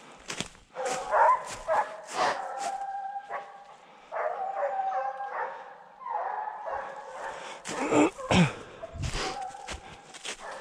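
A pack of hunting hounds baying on a wild boar hunt: several dogs giving long, held calls at different pitches that overlap and repeat. Short sharp sounds cut through, the loudest about a second in and about eight seconds in.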